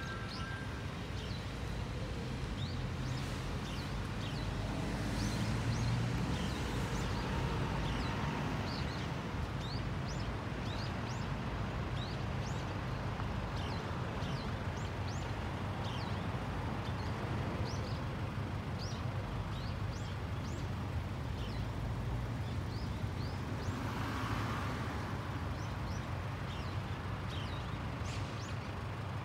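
Outdoor ambience: many short, high bird chirps over a steady low rumble of distant traffic, with a brief swell of noise near the end.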